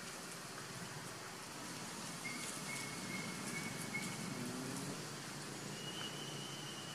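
Outdoor woodland ambience: a faint steady hiss and low hum, with a thin high whistling note repeated several times in the middle and another held high note near the end.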